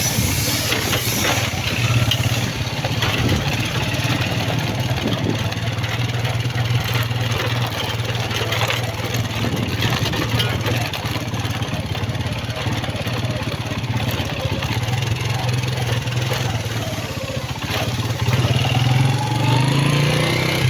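Motorcycle engine running steadily while riding, speeding up with a rising pitch near the end.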